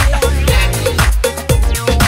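Background music with a steady drum beat and strong bass.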